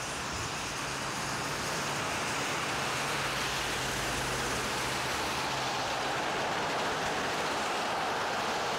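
Steady rush of road traffic and wind noise on the microphone while cycling on a snowy path, with a low vehicle engine hum in the first half.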